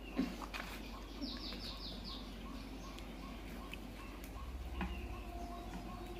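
A small bird chirping: a quick run of about six short falling chirps about a second in, over a short note repeated roughly three times a second. A few light clicks and crinkles come from fingers picking at fried fish on a foil plate.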